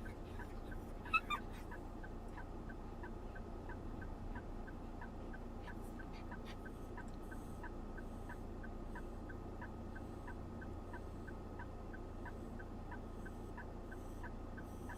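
Vehicle indicator relay ticking steadily about twice a second over a low engine hum inside the cab.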